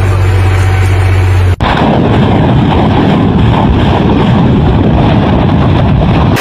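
A heavy vehicle engine's steady low drone, cut off abruptly about a second and a half in by a loud, continuous rumble of a rocket launch that runs on for several seconds.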